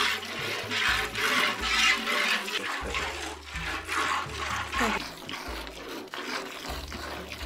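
Cow being milked by hand: milk squirting into a part-filled pail in rhythmic spurts, about two to three a second, with the splash of each jet into the foam.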